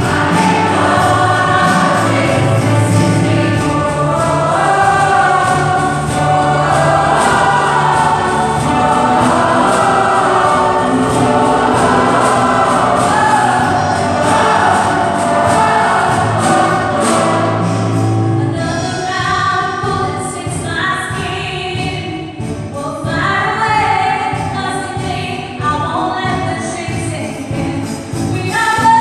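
Mixed choir of men and women singing in a stone cathedral. A little past halfway the low parts drop out and the singing turns lighter and higher.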